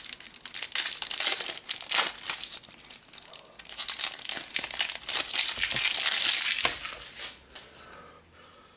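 Trading-card booster pack wrapper being torn open and crinkled by hand, a dense rustle full of small crackles that fades away near the end.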